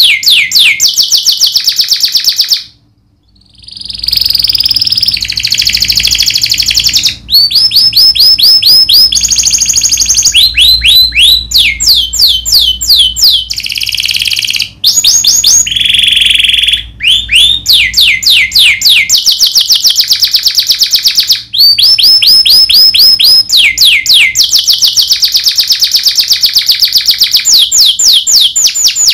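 Domestic canary singing loudly and nearly non-stop in fast trills ('rolls'): runs of rapidly repeated down-sweeping notes, one phrase after another at changing speeds, with a brief pause about three seconds in.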